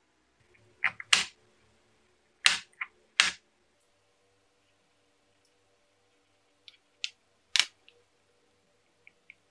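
Sharp plastic clicks and knocks from handling a 3D-printed plastic box and its circuit board: a few loud clicks in the first three seconds or so, then lighter taps and clicks as a screwdriver works the board's screw terminals.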